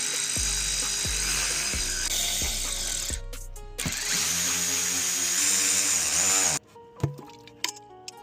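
Power tool running in two bursts of about three seconds each, over background music.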